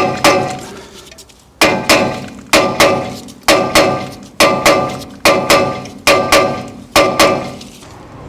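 Hammer blows on steel rear brake parts, the carrier and disc ringing after each hit: the blows come in quick pairs about once a second, knocking the seized brake hardware loose.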